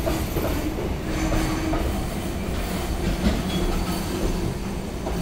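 JR Freight container train's flat wagons (Koki 107 type) rolling past on the rails, a steady noise of wheels on track with a faint hum.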